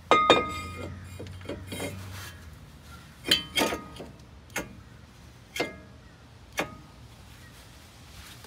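New brake rotor of a 1996 Jeep Cherokee XJ clanking against the hub and wheel studs as it is handled and slid into place. One loud ringing metallic clank comes just after the start, then five sharper knocks spread over the next few seconds.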